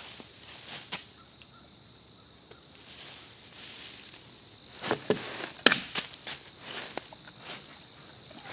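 Footsteps crunching through dry fallen leaves and sticks on a forest floor, with a few sharp twig snaps. A short quiet pause in the first half, then a cluster of louder crunches and snaps from about five seconds in.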